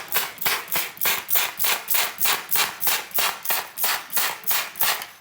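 Water sprayer firing in rapid pulses, about four hissing spurts a second, stopping near the end.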